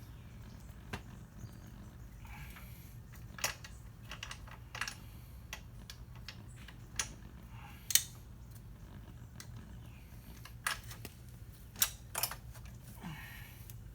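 Scattered light clicks and knocks of metal parts as the loose, axle-less rear wheel and brake of a motorcycle are shifted by hand, irregular, with one sharper knock about halfway through, over a steady low hum.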